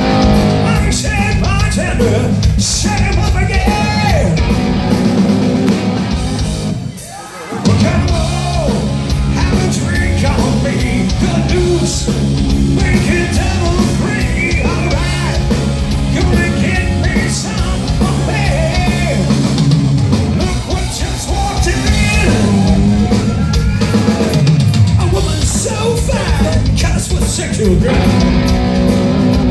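Live hard rock band playing loud through the PA: electric guitars, drum kit and a lead singer. The music drops out briefly about seven seconds in, then the full band comes back in.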